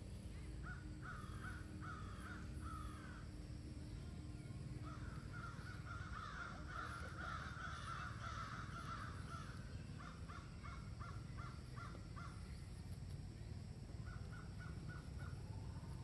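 Crows cawing in repeated series of short calls: a run early on, a dense stretch of overlapping calls in the middle, then an evenly spaced run of about eight caws and five quicker ones near the end, over a steady low background noise.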